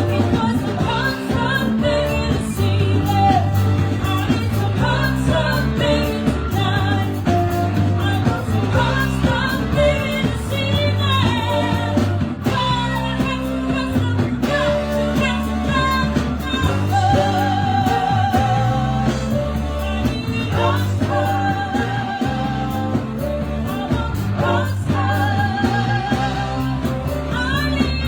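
Live band playing a rock song, a singer over guitar and a bass line.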